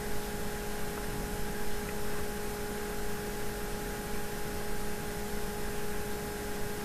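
Room tone: a steady hiss with a low, even electrical hum.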